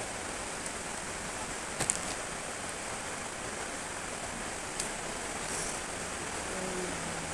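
Steady hiss of room noise, with two small sharp clicks, about two and five seconds in, as small plastic toy bricks are handled.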